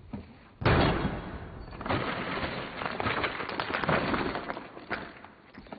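A heap of gold nuggets tipped out and clattering onto a counter: a dense run of knocks and rattles that starts suddenly about half a second in and thins out toward the end.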